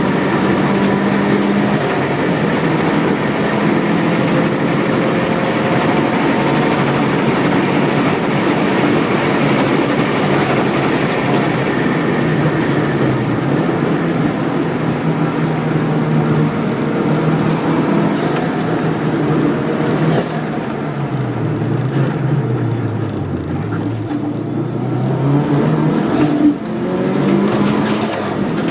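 Subaru WRX race car's turbocharged engine running hard on track, its pitch climbing and falling with throttle and gear changes. About two-thirds through, the engine note drops low for several seconds and then climbs again.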